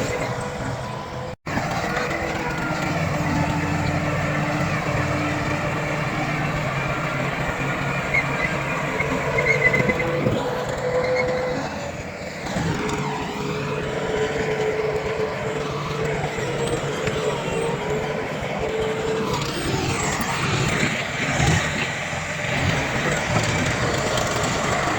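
Diesel engines of heavy earthmoving machinery, a bulldozer and dump trucks, running steadily, with a momentary dropout about a second and a half in and the engine note dipping and rising again about halfway through.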